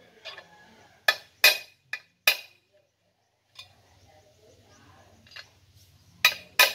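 Sharp metal-on-metal taps driving a large bearing into a motorcycle clutch cover, with the clutch push rod used as a drift. Four quick taps in the first couple of seconds, then two more near the end.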